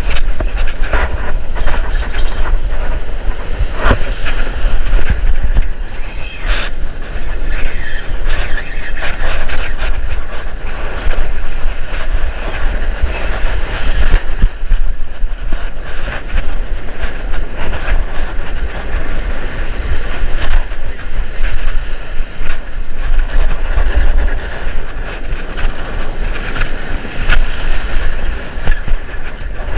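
Surf washing and breaking, with wind buffeting the microphone as a low rumble, and a steady run of fine ticks and rattles from a large spinning reel being cranked.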